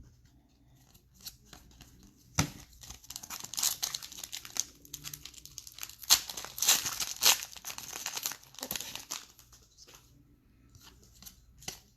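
A foil-wrapped football card pack being torn open, its wrapper crinkling and crackling for several seconds, then a few faint rustles as the cards are handled.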